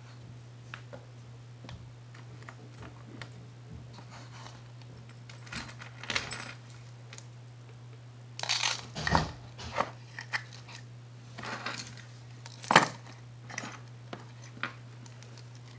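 Metal jewelry chains and pendants clinking and jingling as they are handled in a wooden jewelry box, with scattered light clicks and a few sharper knocks, busiest a little past the middle. A steady low hum lies underneath.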